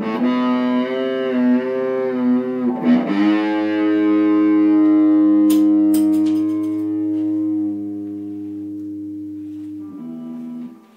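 Electric guitar played through an amp. A chord wavers with vibrato, and a fresh strum about three seconds in rings out and slowly fades. It is cut off about ten seconds in, and a quieter chord follows.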